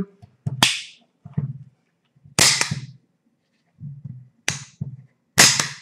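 Swiss Army Model 1882 revolver dry-fired as a function check after reassembly: the hammer snaps down four times, about every second or two, the last snap the loudest.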